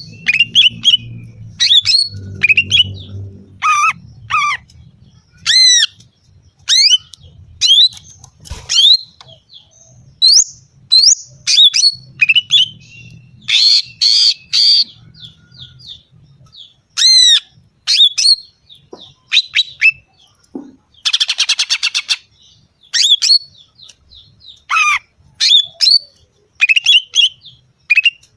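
Female greater green leafbird (cucak ijo) calling for a male: loud, short, sharp notes that sweep steeply in pitch, repeated about once a second, with one buzzy rattling note about three-quarters of the way through.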